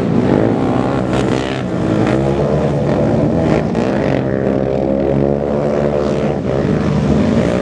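Several racing ATV engines running hard on a dirt track, their pitch rising and falling as the riders rev up, let off and shift through the corners.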